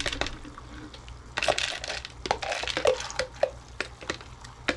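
Metal spoon stirring elbow macaroni into sauce in a pot, clinking and scraping against the pot, as the last noodles drop in from a plastic measuring jug. A run of short clicks and knocks, with a longer scraping rush about a second and a half in.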